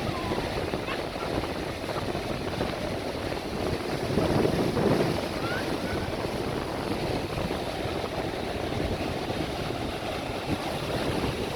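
Sea waves washing in with wind on the microphone, a steady noisy rush that swells louder about four seconds in.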